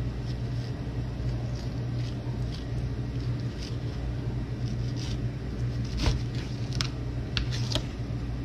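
A knife slicing through a raw swordfish loin on a plastic cutting board: soft scrapes, then a sharper click about six seconds in and a few light ticks as the blade meets the board. A steady low appliance hum runs underneath.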